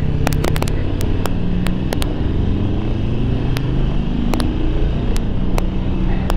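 2009 Harley-Davidson Sportster 1200 Low's air-cooled V-twin engine running under way at low speed, its pitch rising and dropping a few times as the bike accelerates. Scattered sharp ticks sound over it.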